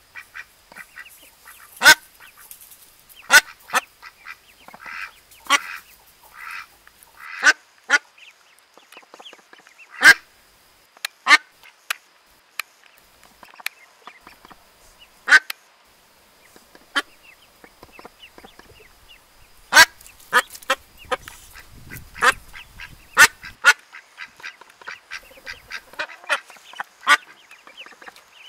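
Newly hatched ducklings peeping: short, sharp calls at irregular intervals, a second or several apart, with fainter peeps between them.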